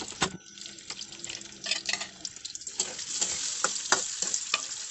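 French fries frying in hot oil in a pan: a steady sizzling hiss with frequent crackles and pops.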